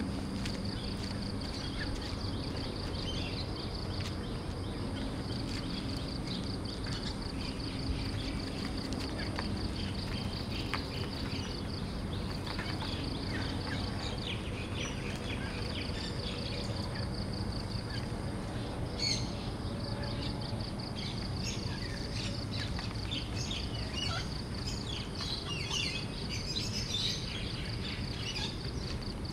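Outdoor ambience: a steady high-pitched insect drone and birds chirping, the chirps more frequent in the second half, over a low rumbling noise.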